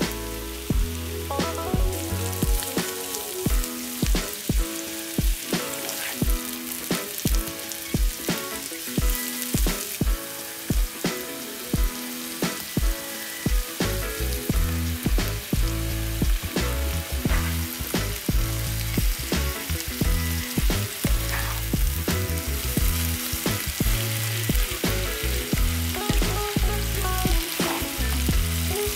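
Sliced vegetables sizzling in oil in a nonstick frying pan, with many sharp clicks as pieces of mushroom and zucchini are dropped in, and a spatula stirring near the end.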